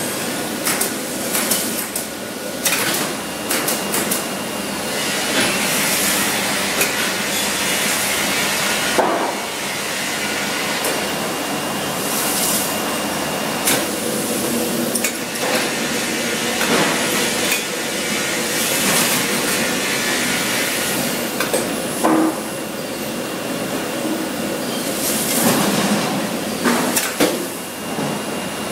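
Board-handling line with a vacuum lifting gripper at work: rough-sawn wooden boards knock and clatter against each other and the roller conveyor as they are picked up and stacked. A rushing hiss of air sounds every several seconds, and machinery runs steadily underneath.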